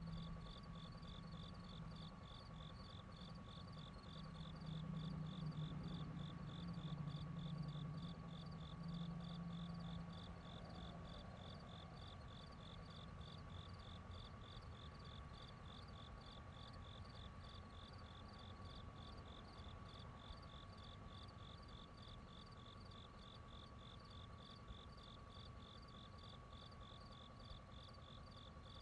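Outdoor ambience of insects chirping in a steady, evenly pulsed rhythm of a few chirps a second, over a faint steady high tone. A low whirr swells about four seconds in, is loudest around six to ten seconds, then fades away.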